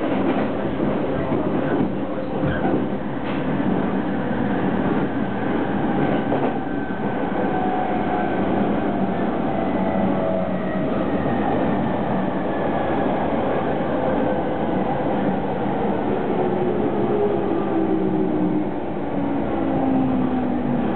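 Running noise of a JR 209-series electric train heard from inside the car: steady wheel-and-rail rumble with a few clicks early on. From about halfway, the traction motor whine falls steadily in pitch as the train brakes for a station.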